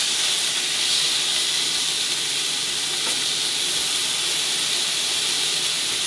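Steaks searing in a hot frying pan, freshly turned onto their second side: a steady, hissing sizzle.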